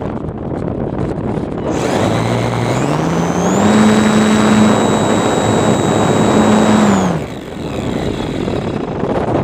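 RC plane's motor throttling up about two seconds in, its pitch rising to a steady high whine, then throttling back and dying away about seven seconds in. Wind rushes on the microphone throughout.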